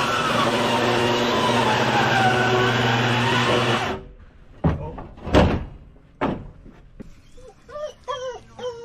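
Table saw ripping a thick white oak plank, its whine sagging and recovering in pitch as the blade bogs under the load, cutting off about four seconds in. Then a few knocks, and near the end a run of short, high, squeaky calls.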